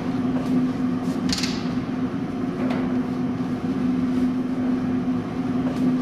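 Steady low hum of running laundromat machines, with a couple of light clicks about one and a half and three seconds in as jeans are pulled out of a machine drum.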